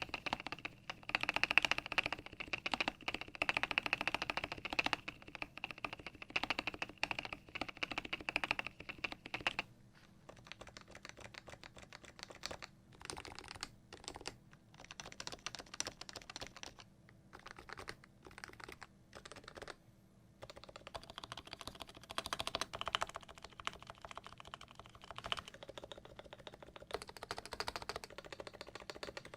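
Typing on a CM Storm Novatouch keyboard with lubricated Topre electrocapacitive switches in a Norbauer Norbatouch case. The keystrokes are fast and dense, thin out to sparser, quieter strokes for about ten seconds in the middle, then pick up again.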